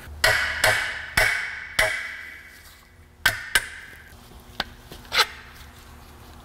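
Hammer striking steel on an old strut: four hard, ringing metal blows in quick succession, then a few lighter knocks over the next few seconds as the parts are knocked off the strut.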